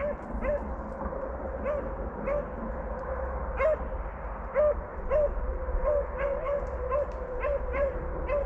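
Beagles baying while running a rabbit: short, repeated, rising-and-falling bawls about once or twice a second, with several dogs overlapping around the middle. A steady low rumble sits underneath.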